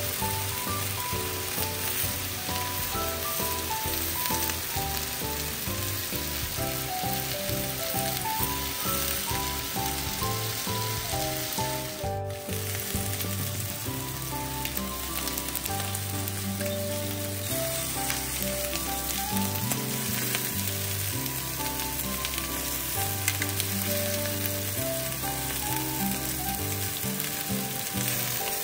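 Chicken and leek yakitori skewers sizzling steadily in a frying pan, under background music.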